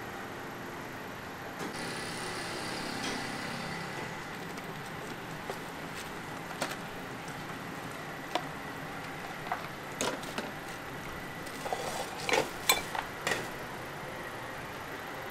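Kitchen utensils clinking against pots and bowls: scattered sharp clinks, with a cluster of louder ones about twelve seconds in, over a steady background hiss.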